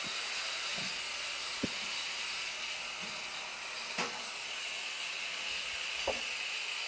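A steady hiss, with a few faint knocks and clicks.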